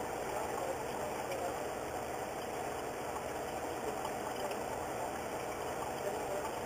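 A steady mechanical drone that holds an even level, with no distinct events standing out.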